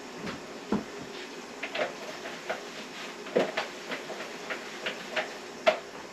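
Chicken pieces sizzling in hot oil in a Dutch oven pot, with scattered light clicks and taps of a utensil against the pot.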